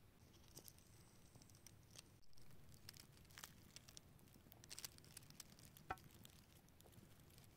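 Near silence with faint scattered clicks and light rustling from a small knife cutting and peeling vegetables by hand, with one sharper click near the end. A faint high steady note sounds briefly near the start.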